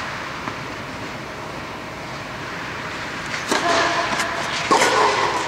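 Tennis serve on an indoor clay court: a steady rushing background, then a sharp racket-on-ball hit about three and a half seconds in, and a second knock just under five seconds in as the ball comes back, each followed by louder pitched sound.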